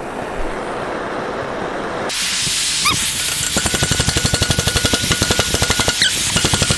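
Oxy-acetylene torch hissing as it heats a seized rototiller tine hub. About two seconds in, a much louder rushing hiss starts. From about three and a half seconds there is rapid, even hammering of about ten blows a second from a power hammering tool driving at the stuck tine.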